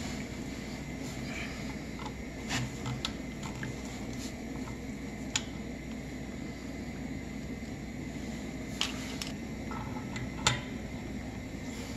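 Light metallic clicks and taps of a screwdriver and wrench working on a brass ball valve, taking off its handle, scattered over a steady background hum; the sharpest click comes near the end.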